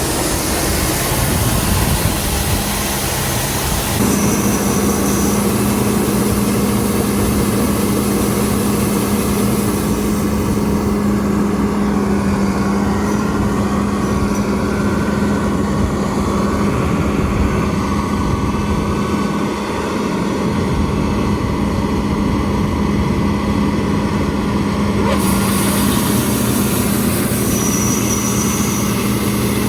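A large diesel engine running steadily with a constant low hum, from harvest machinery such as a combine or grain truck. The mix of the sound shifts abruptly about four, ten and twenty-five seconds in.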